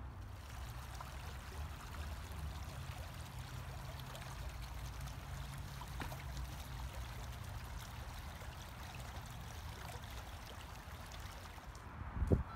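Shallow stream running over rocks: a steady wash of water over a low rumble. Near the end the water sound stops and there is a brief low thump.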